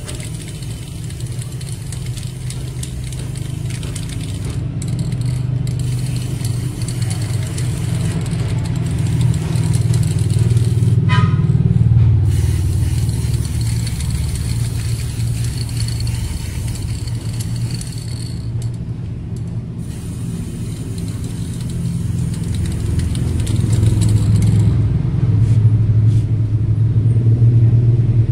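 Aerosol spray-paint can hissing in long bursts with short pauses as silver paint goes on, stopping a few seconds before the end. Under it runs a loud, steady low rumble.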